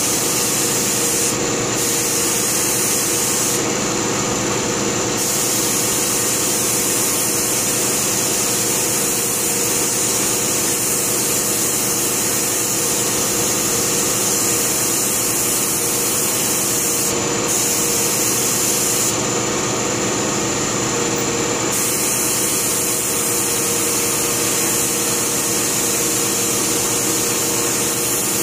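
Compressed-air siphon-feed spray gun hissing as it sprays paint, over a steady motor hum; the hiss thins out briefly a few times as the spraying pauses.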